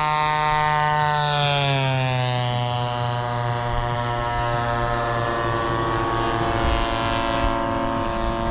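Radio-controlled model airplane engine running in flight, a steady buzzing tone whose pitch drops over a second or two about a second in, then holds steady.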